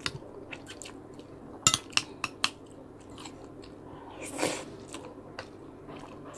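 A person eating rice with a spoon: a quick run of sharp clicks from the spoon against the dishes about two seconds in, then chewing and a short louder mouth sound as a spoonful of rice goes in.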